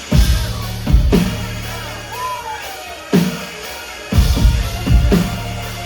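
Live band playing a song intro: six heavy, spaced drum hits, two of them close together about four seconds in, over a steady low bass tone.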